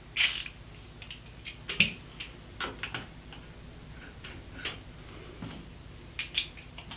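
Sharp clicks and light metallic ticks of a tri-wing security bit being fitted into and handled with a ratchet screwdriver, the loudest click just after the start, then a dozen or so fainter, irregular ticks.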